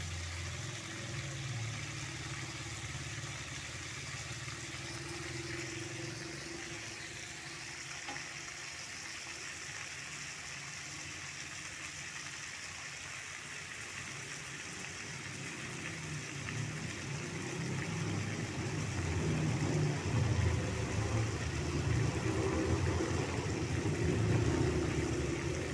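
Pangasius catfish heads frying in oil in a wok, a steady sizzle as they fry dry. A low rumble grows louder about two-thirds of the way through.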